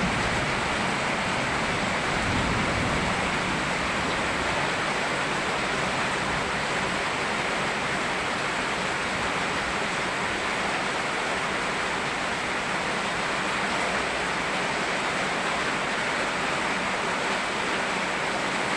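Steady rain and a flowing river blended into one even hiss, with no distinct drops, splashes or other events.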